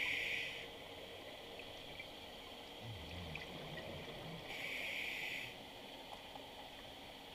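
A scuba diver's regulator breathing, heard underwater: two short hisses about four and a half seconds apart, with faint low bubbling between them.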